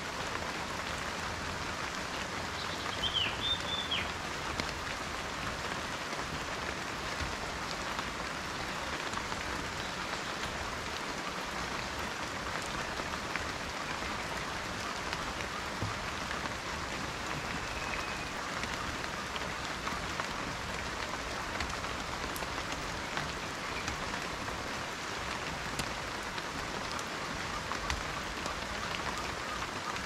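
Steady gentle rain falling on dense forest leaves, an even patter with no break.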